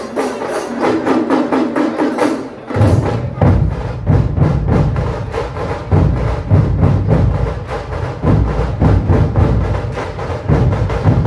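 Dhol-tasha pathak drumming: a fast, dense run of tasha strokes, joined about two and a half seconds in by heavy, deep dhol beats that pulse roughly twice a second.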